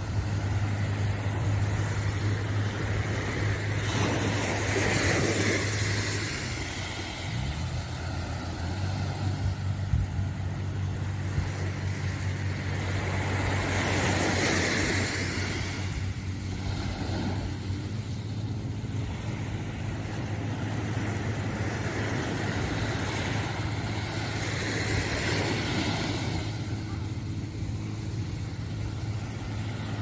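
Small waves washing onto a sandy beach, swelling up and fading about every ten seconds, over a steady low engine hum.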